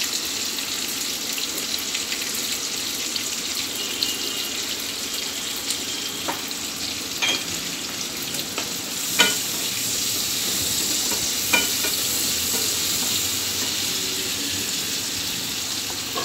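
Chopped small onions (shallots) sizzling as they fry in oil in a wok, with a few sharp clicks, the loudest about nine seconds in.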